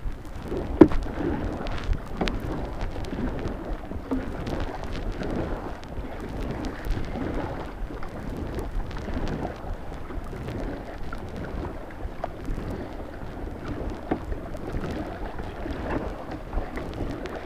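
River water splashing and rushing past a kayak as it is paddled, with a low rumble and scattered small knocks and drips. A sharp knock about a second in.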